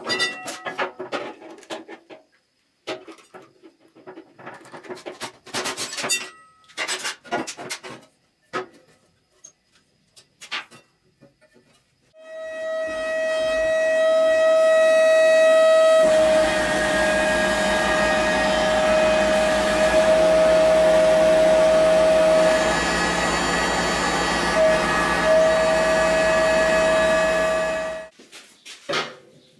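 Scattered handling clicks and knocks, then a small electric power tool starts about twelve seconds in and runs steadily with a high whine for about sixteen seconds before stopping. Its pitch dips briefly a few times.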